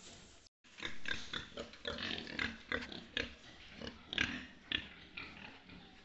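A pen of young pigs grunting, many short calls in quick succession, after a brief silent break about half a second in.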